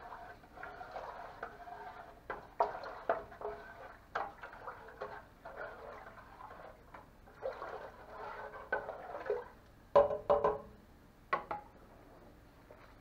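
Wooden spoon stirring liquid in a stainless steel stockpot, with a sloshing swish and repeated knocks and scrapes of the spoon against the pot; the loudest knocks come in a cluster a little before the end, as the spoon moves to the other pot.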